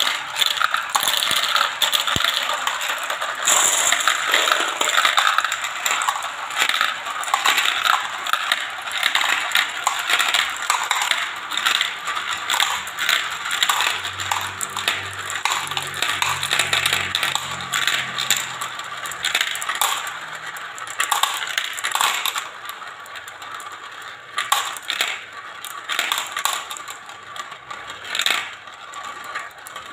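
Dozens of marbles rattling and clicking as they spin around and drop through translucent plastic funnels and tubes of a marble run. The clatter is dense at first and thins to scattered separate clicks near the end as fewer marbles remain.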